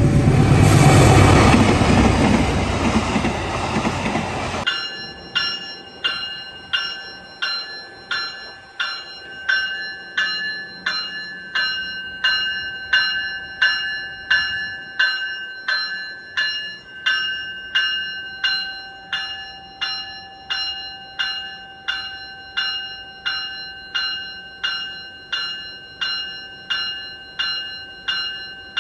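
A train's loud, even running noise cuts off about five seconds in. A locomotive bell then rings in a steady rhythm, about one and a half strokes a second, each stroke ringing on until the next.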